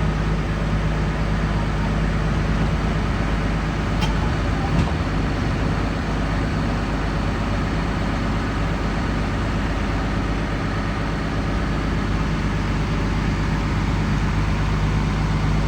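Heavy diesel engine running steadily at an even speed, with no revving.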